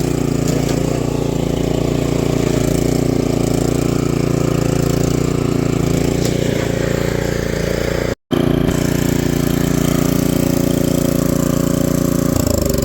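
Benchmark 24-inch snowblower's small engine running steadily on a test run, with a brief break about eight seconds in; near the end it is shut off and winds down, its pitch falling.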